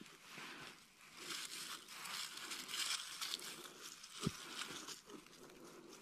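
Loose soil and dry leaf litter being scraped and crunched by a hand tool probing a freshly dug hole, with a soft knock about four seconds in.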